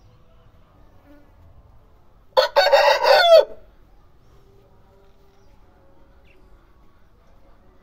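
Aseel rooster crowing once: a short, loud crow of about a second, ending on a falling note.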